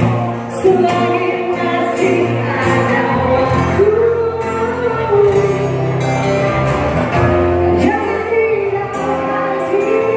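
A woman singing live into a microphone over acoustic guitar accompaniment, with long held notes that waver in pitch.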